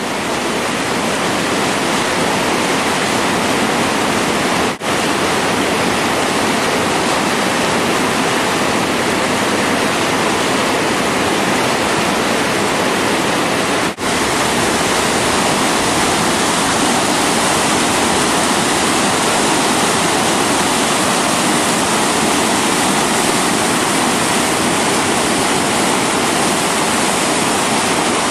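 Whitewater rapids rushing over boulders, a steady even roar, cutting out for an instant twice, about 5 and 14 seconds in.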